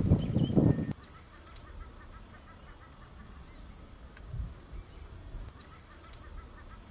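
A loud, uneven low rumble for about the first second, then cut off. After it, wetland ambience: a steady high-pitched insect drone with many faint, quick chirping calls scattered through it.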